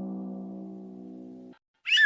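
The fading ring of a deep struck note with many overtones, like a gong or timpani hit, cut off suddenly about one and a half seconds in. Just before the end a high wavering tone, like a theremin, starts with its pitch swinging up and down.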